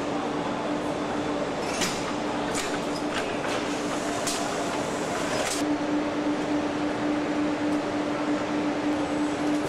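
Factory-floor machinery noise in an engine block machining plant: a steady hum and drone. A few short, sharp metallic clanks come between about two and six seconds in, and the hum drops out for a couple of seconds in the middle.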